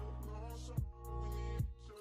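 Background music with a deep, steady bass and a kick drum hitting a little more than once a second.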